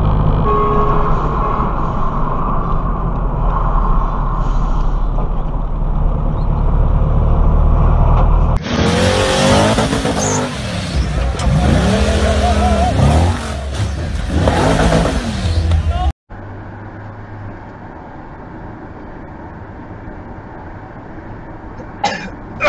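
Road vehicle engines running in a series of separate recordings: first a loud, steady low rumble, then after a sudden change a noisier stretch with rising and falling tones, then a quieter steady hum.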